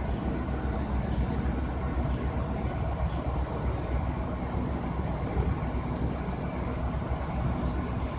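Steady low rumble of heavy vehicle engines, with a faint high whine over the first couple of seconds.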